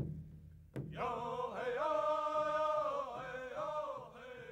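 Soundtrack music: a voice singing a slow, held chant that starts about a second in, after two short drum-like knocks.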